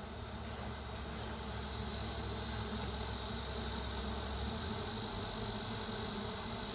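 Swarming honey bees buzzing in the air, a steady hissing drone that grows slowly louder.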